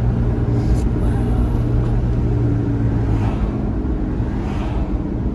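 Car being driven, heard from inside the cabin: a steady low rumble of engine and road noise. A low hum in it drops away about three seconds in.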